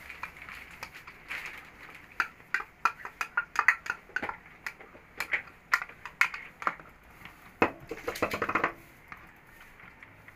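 A spoon and bowl clinking and tapping against each other and the cooking pot as cream is poured and scraped into the pot. It is a run of sharp, uneven taps, thickest in a quick cluster about three-quarters of the way through.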